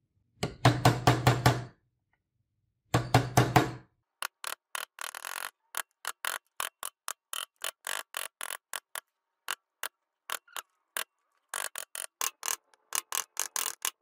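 A steel punch being tapped to drive gold wire into the engraved letters of a steel knife handle held in a vise: two brief bursts of rapid tapping, then a long run of light, sharp metallic taps at an uneven pace.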